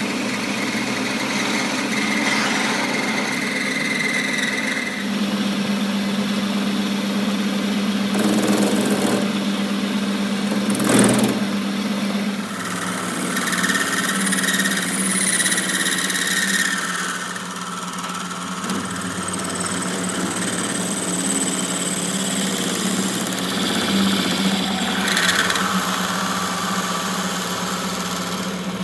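A machine running steadily with a constant low hum. There is a sharp knock about eleven seconds in, and high-pitched whining comes and goes over the hum.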